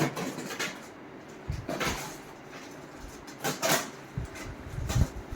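Plastic wrapping on a vacuum-packed memory foam mattress being cut and pulled open: short rustling swishes several times, then low handling thumps near the end.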